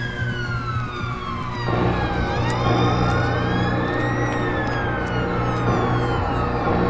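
Emergency vehicle sirens wailing: several slow rising-and-falling sweeps overlap out of step, over a steady low hum. The sound grows louder and fuller about a second and a half in.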